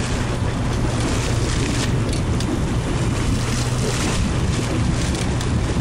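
Fishing boat's engine running with a steady low hum while under way, with water washing along the hull and wind on the microphone.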